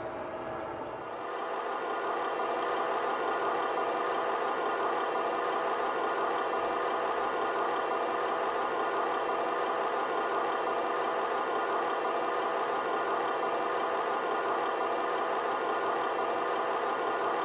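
A model locomotive's DCC sound decoder playing a Class 43 Warship's diesel engine idle through its onboard speaker. The idle rises in about a second in and then runs steadily.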